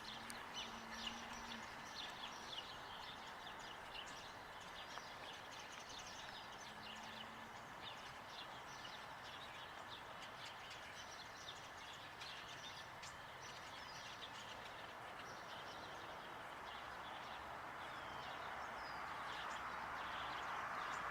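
Small birds chirping and twittering in many short, high calls, over a faint steady background hiss that swells near the end.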